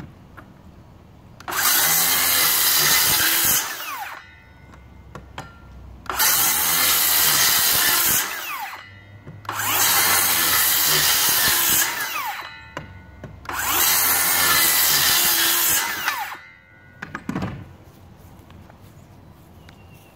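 DeWalt Flexvolt 60V cordless circular saw cutting through 2x6 lumber in four loud passes of about two seconds each. Between passes the motor winds down with a falling whine.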